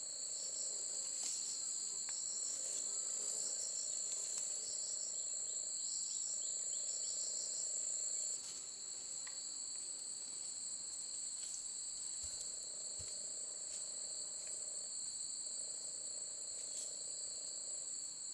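Insects trilling in a continuous high-pitched drone, with a quicker repeating chirp laid over it for the first several seconds. The overall level drops a little about eight seconds in.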